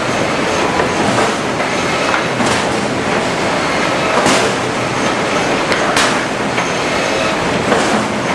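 HewSaw R200 chipper-canter sawing line running: loud, continuous machinery noise with a short hissing surge about every second and three quarters.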